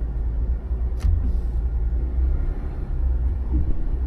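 Jeep engine and drivetrain rumbling steadily as the Jeep crawls along a dirt trail, with a single sharp click about a second in.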